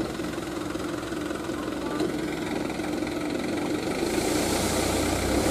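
Dump truck engine running steadily while its tipper bed is raised and sand slides out. About four seconds in, a rushing hiss and a deeper rumble swell up.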